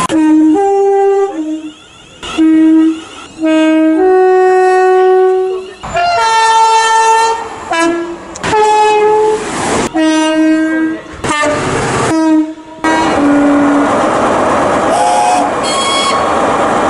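British train horns sounding a rapid series of two-tone blasts, each call switching between a lower and a higher note, from several different trains one after another. Near the end a passing train's rumble runs under further horn notes.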